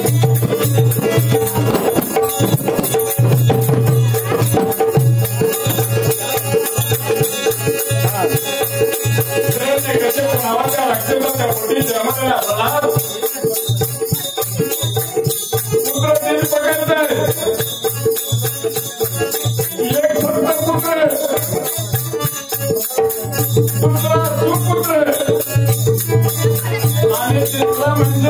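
Marathi shahiri folk music: a rapid, steady rattling percussion over a held drone. A voice sings in rising and falling phrases in several stretches through the second half.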